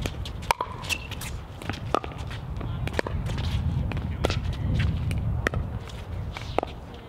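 Pickleball rally: sharp pops of paddles striking a plastic pickleball and the ball bouncing on the hard court, coming about once a second, with shoes shuffling on the court between hits.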